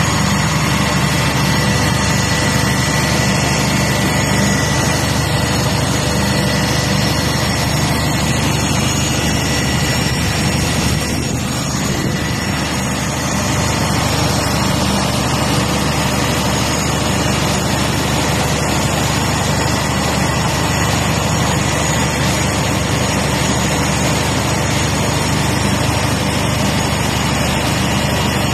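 Steady, loud drone of machinery running, engine-like, with several steady tones held throughout and no change in rhythm.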